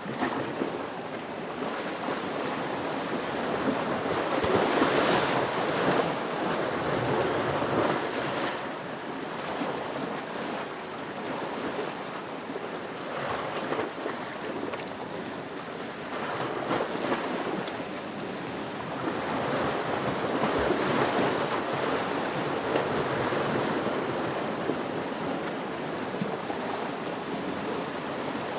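Ocean waves breaking and washing in, a steady rush of surf that swells and ebbs, with louder surges twice.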